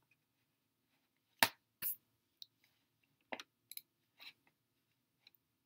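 A handful of quiet, scattered clicks and taps from working a computer. The sharpest comes about a second and a half in, a second follows soon after, and several fainter ones trail on.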